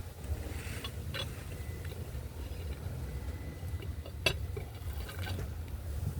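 Low wind rumble on the microphone with a few small clicks and ticks over it, the sharpest about four seconds in.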